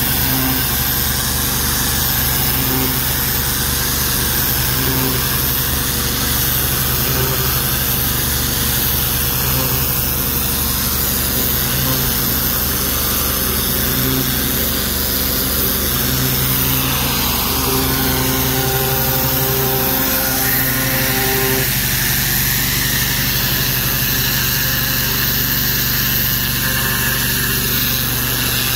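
Engine-driven pressure washer running steadily while its jet hisses against a brick wall and the concrete below it.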